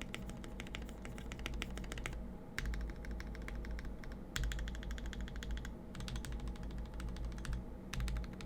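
Mechanical keyboard being typed on fast, in bursts of rapid keystrokes with short pauses between them. It is a Portico with lubed and filmed Gateron Milky Yellow linear switches and Islander PBT keycaps.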